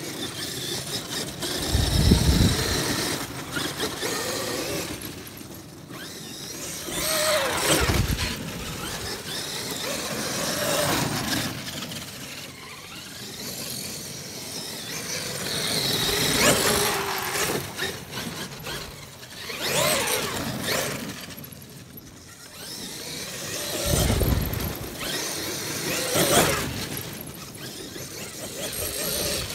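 Traxxas X-Maxx 8S electric RC monster truck driving hard on dry grass: the brushless motor and geared drivetrain whine up and down in pitch with each burst of throttle. The tyres scrabble at the dirt, and there are a few short low rumbles.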